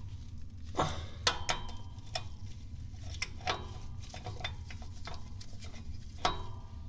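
Irregular metallic clicks and clinks as the speedometer cable's threaded collar is tightened onto the transmission's pinion gear housing, some with a short ring.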